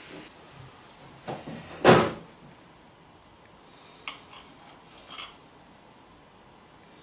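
Table knife knocking and clicking against a ceramic plate while cutting through a rolled pancake: a loud knock about two seconds in, then two lighter clicks around four and five seconds in.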